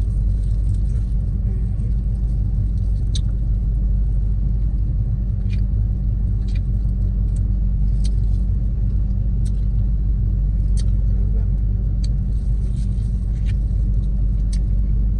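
Steady low rumble of a car engine idling, with about ten sharp, brief mouth clicks and smacks scattered through it as someone chews food.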